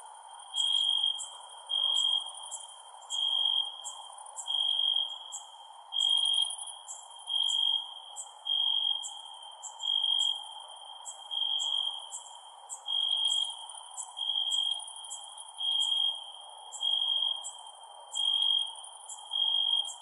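Crickets chirping at night: one insect gives a clear, pure-toned chirp about every second and a bit, while others make shorter, higher chirps, over a steady background hiss.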